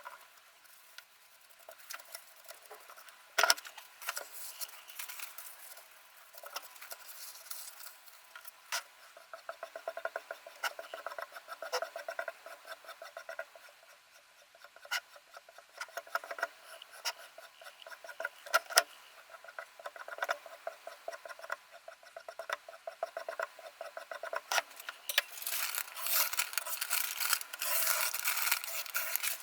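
Sharpening stone of a Ruixin Pro RX-008 guided sharpener rubbing back and forth along the edge of a VG10 Damascus chef knife in quick, repeated strokes, with a few sharp clicks. The scraping gets louder and denser near the end.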